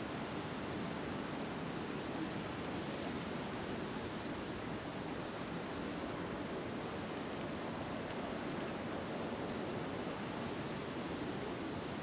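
Steady, even rushing ambient noise outdoors, with no distinct events in it.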